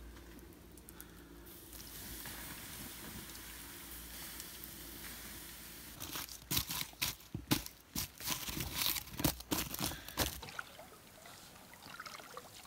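Faint steady hiss from a campfire just doused with water, then, about six seconds in, a rapid run of crunches for about four seconds as boots stamp out the wet embers and charred wood in the stone fire ring.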